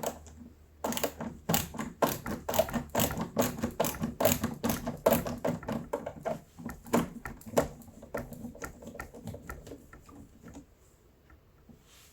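Screwdriver backing out the front screws of a door's spring latch: a run of irregular clicks, several a second, that fade out about ten seconds in.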